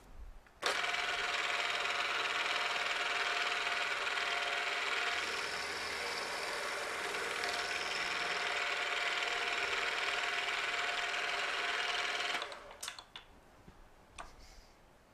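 Vertical milling machine's end mill cutting a flat on a hexagonal steel part: a steady, loud cutting noise with a steady whine, starting suddenly near the start and stopping about twelve seconds in, followed by a few clicks.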